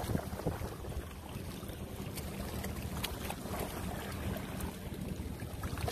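Wind on the microphone and water lapping against shore rocks, over a steady low hum, with a few faint clicks scattered through.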